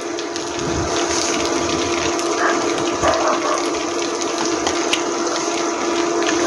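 Egg frying in hot oil in a nonstick pan: a steady sizzle with scattered small pops and crackles, over a steady low hum.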